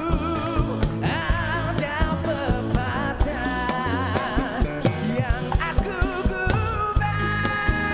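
A man singing a slow Malay-language pop-rock song into a microphone, his held notes wavering with wide vibrato, over backing music with a steady drum beat.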